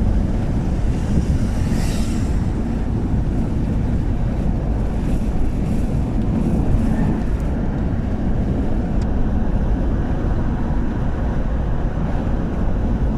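Car driving along a road: a steady low rumble of engine and tyre noise with wind noise on the microphone, and a brief swell of hiss about two seconds in.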